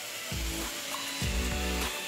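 Steady hiss of a pressure washer spraying water against a truck's painted side panel. Under it runs background music with deep bass notes about once a second.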